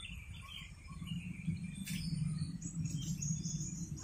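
Small birds chirping in short, falling notes over a steady low rumble, with one sharp click about two seconds in.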